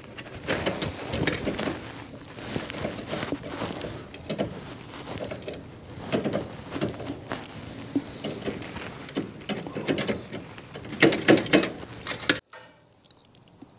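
Irregular metal clinks, taps and knocks of hand work fitting a new carburetor onto a V8's intake, with a quick cluster of clicks about 11 seconds in. The sound cuts off abruptly a little after 12 seconds.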